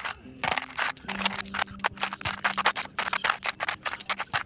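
Loose euro coins clinking as they are picked out of a plastic dustpan and counted into a hand: a rapid, uneven run of small metallic clicks.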